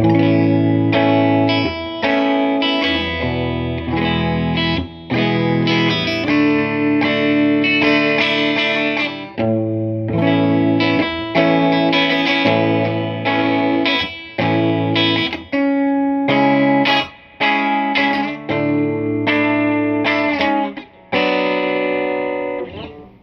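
Electric Telecaster guitar played through a Crate VC5212 Vintage Club 50 tube combo amp with the volume at 1.5: a run of strummed chords, each held for a second or two and then cut short.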